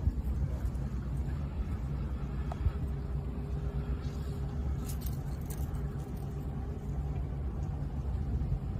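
Outdoor street ambience: a low, steady rumble with a faint steady hum and a few light clicks.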